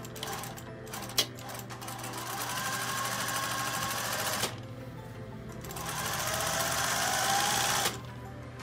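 Straight-stitch sewing machine sewing a skirt's side seam in two runs of about two seconds each, the second speeding up as it goes. A sharp click comes about a second in, before the first run.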